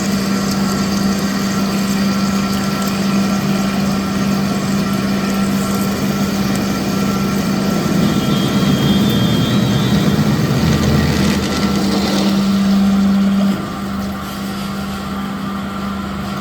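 Drilling machine running steadily with a constant hum. Its loudness drops suddenly near the end.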